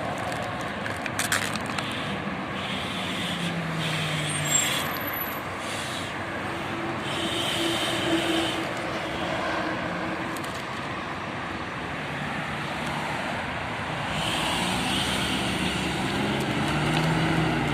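Street traffic noise: a steady mix of passing vehicles' engines and tyres, with a few short ticks.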